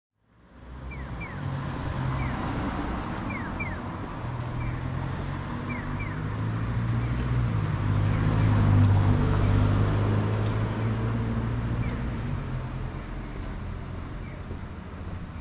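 A vehicle's engine going slowly past: a low hum that grows louder to a peak about nine seconds in and then fades, with a few short high chirps over it.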